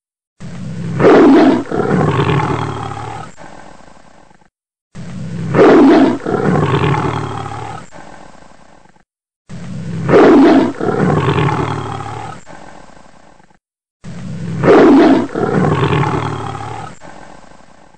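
A big cat roaring, the same roar repeated four times about every four and a half seconds, each loud at the start and then fading away.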